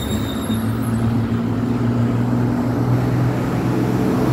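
Motor vehicle engine running with a steady low hum over road-traffic noise; its pitch rises slightly near the end.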